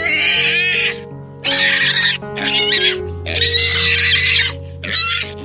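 Piglets squealing: five loud, high, wavering squeals in quick succession, the longest about a second and a half, over steady background music.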